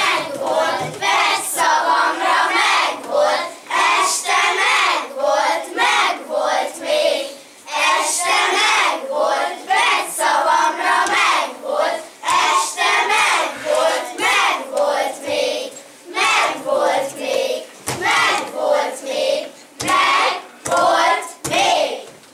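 A group of children's voices chanting verses in unison in short rhythmic phrases, with sharp hand claps among them.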